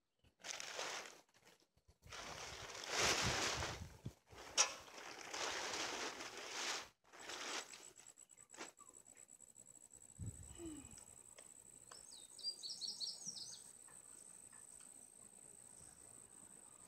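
A plastic tarp and hay bales rustling and scraping as they are pulled and shifted on a trailer, with one sharp knock midway. Then a steady high insect whine takes over, and a bird gives a short quick run of chirps.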